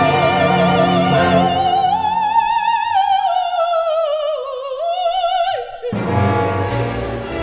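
Operatic soprano with symphony orchestra. She holds a long high line with wide vibrato that sinks in pitch, left almost alone as the orchestra falls away. The full orchestra comes back in loudly about six seconds in.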